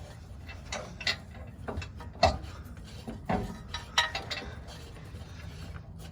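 Irregular clicks and knocks of hand work on a diesel truck's fuel filter housing as a new filter is fitted and tightened.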